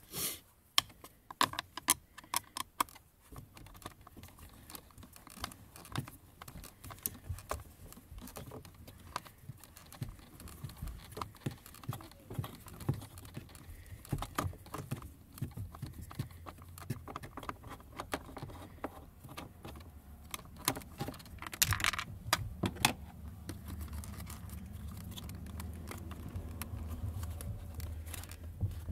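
Irregular small clicks and light knocks of a screwdriver working at a screw inside plastic dashboard trim, the tool tapping against the screw and the panel, with a cluster of sharper clicks about a second in and again near the end. A low steady hum comes in near the end.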